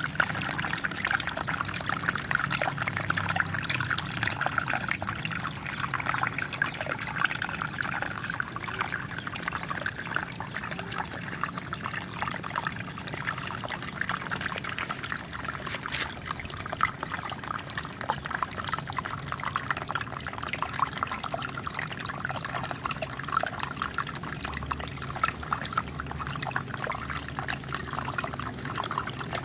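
Small waterfall: water falling and splashing continuously, a dense, even patter of small splashes.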